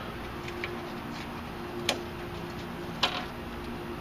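A small metal tool scraping and clicking against the steering gearbox housing around the pitman shaft, picking dirt out of the seal bore. A few sharp clicks, the loudest about two seconds in and again about three seconds in.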